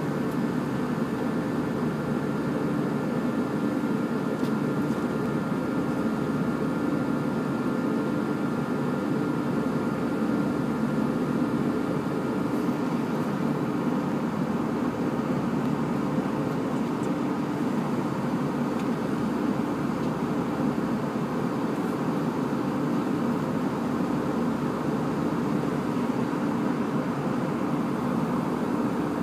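Steady airliner cabin noise heard from a passenger seat: an even, low rush of engines and airflow, with a few faint steady tones over it during the first half.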